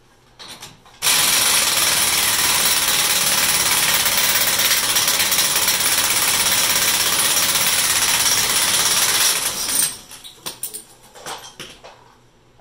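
Pneumatic impact wrench hammering on a rusted front axle nut for about nine seconds to break it loose, then stopping, followed by a few light metal clinks.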